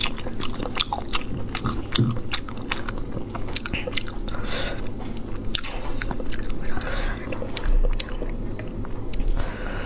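Close-miked eating: a person biting and chewing pieces of saucy braised food, with many sharp wet clicks and smacks several times a second and a little crunching.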